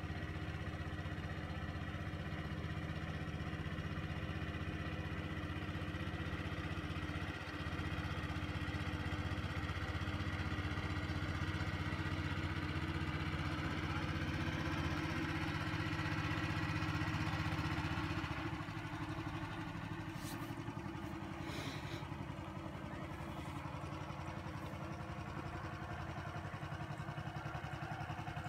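Small wooden river boat's motor running steadily as the boat comes in, then throttled back about two-thirds of the way through to a quieter, lower running note as it nears the bank.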